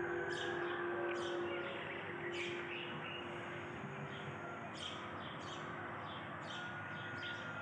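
Small birds chirping intermittently, short high chirps about once a second, over a steady outdoor background hiss.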